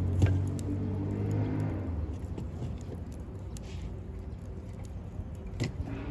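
Wood campfire crackling, with a few sharp pops, the loudest just after the start and another near the end. Under it a low engine-like hum fades away over the first two seconds.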